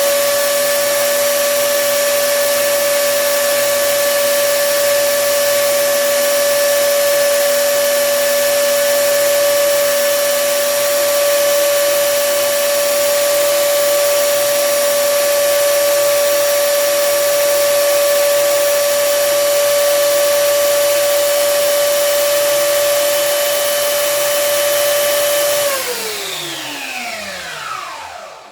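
Jellas 750 W belt sander running at a steady speed with a steady whine, quite loud. About 26 s in it is switched off and winds down, the whine falling in pitch until it stops near the end.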